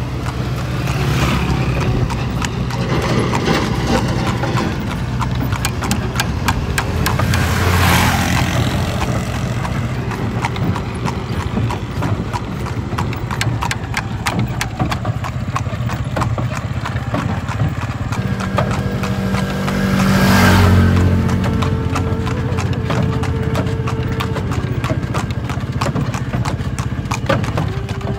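A horse's hooves clip-clop at a steady trot on a paved road as it pulls a cart. Twice, about a third of the way in and again about three quarters through, a louder rushing sound swells up and fades.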